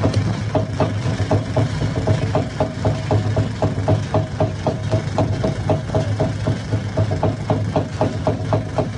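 A hammer stone crusher running: a steady low hum with regular sharp knocks about four times a second.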